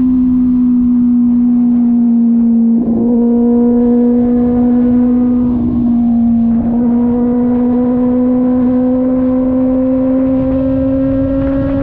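Kove 450RR motorcycle's parallel-twin engine running at cruising revs under way, with wind rumble. The engine note breaks briefly twice, about 3 and 6.5 seconds in, then climbs slowly in pitch toward the end.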